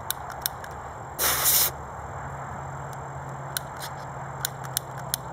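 Repeated sharp clicks of a long-nosed utility lighter's igniter being worked again and again without catching: a couple near the start, then a quick run in the second half. About a second in, a short loud hiss lasts about half a second.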